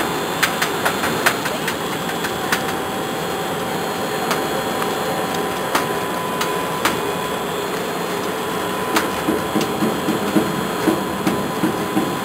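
Snack-cutting machine for triangular chips running steadily, with irregular sharp clicks and knocks from its cutting mechanism. The knocks come thicker, with some low rattling, in the last few seconds.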